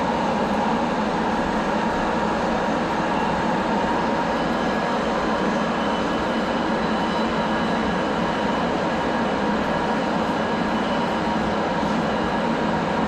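Cabin noise of a BART A2 rapid-transit car running at speed: a steady rumble and hiss of wheels on rail, with faint steady whining tones over it.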